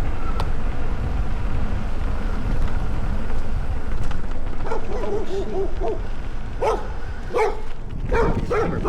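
A dog barking and yelping in a string of short barks from about five seconds in, over a steady low rumble.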